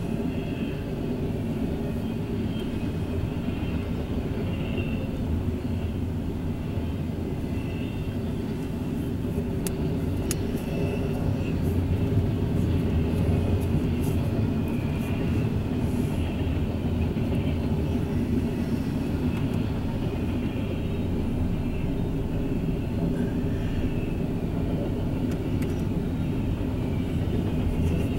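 Double-stack intermodal freight cars rolling past: a steady rumble of steel wheels on the rails that grows a little louder partway through, with a few sharp clicks about ten seconds in.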